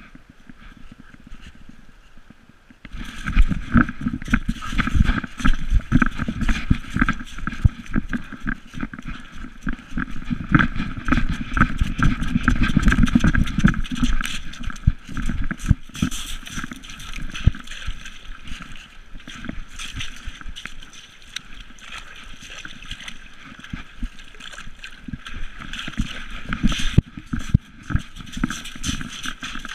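Collar-mounted GoPro knocking and rattling as an Irish wolfhound trots and then runs over gravel, with quick, uneven footfalls. It is quieter for the first few seconds and loudest about ten to fourteen seconds in, during the run.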